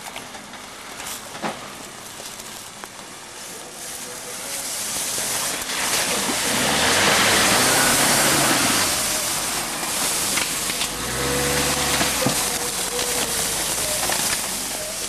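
Suzuki Samurai's four-cylinder engine revving up and down as the 4x4 crawls over a rough woodland trail, growing louder as it comes close and loudest about halfway through. Toward the end, branches crackle and scrape against the vehicle as it pushes into brush.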